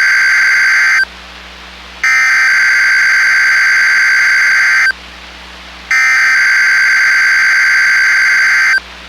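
Emergency Alert System SAME header: harsh, buzzy digital data tones sent in three bursts of about three seconds each, with a second's pause between them. The first burst is already under way and ends about a second in; the other two follow in full. The header marks the start of an alert message.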